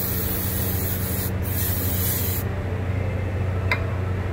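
Aerosol brake parts cleaner hissing as it is sprayed onto a brake caliper to clean off brake dust and grease: two sprays with a brief pause between, cutting off about two and a half seconds in. A steady low hum runs underneath, and there is one sharp click near the end.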